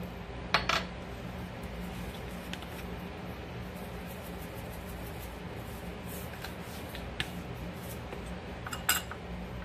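Seasoning shakers being shaken over a bowl, heard as faint scattered ticks, with a sharper click about half a second in and another near the end, over a steady low room hum.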